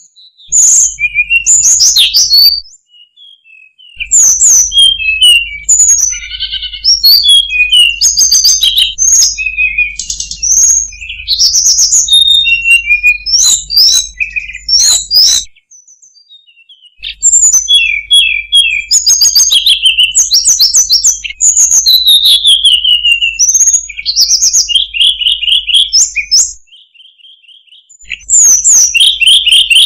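Hill blue flycatcher (tledekan gunung) song: quick chirps, whistled notes and rapid trills in long phrases, broken by a few short silent pauses.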